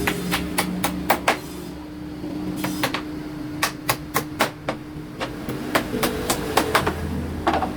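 Hammer blows on wood, a couple of dozen sharp knocks in quick irregular runs, over a steady low hum.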